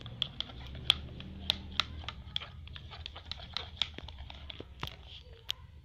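Clear glue and liquid soap being stirred in a container: irregular sharp clicks and ticks of the stirrer working the sticky mixture, over a low steady hum.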